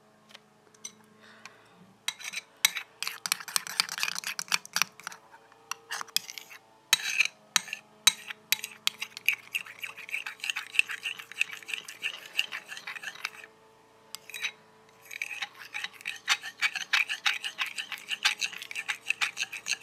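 A utensil stirring red-coloured slime glue in a bowl, scraping and clicking against the sides in quick, dense strokes. The strokes pause briefly a little past the middle.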